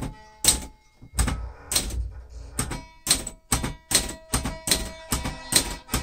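Adler J5 manual typewriter typing single characters of the number row, one sharp keystroke and typebar strike at a time. The first few strokes are spaced out, then they come evenly at about three a second.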